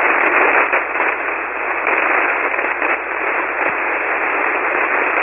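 Steady hiss of 40-metre shortwave band noise from a single-sideband receiver, heard through a web SDR tuned to 7.188 MHz; the calling station's signal is too weak to make out in it.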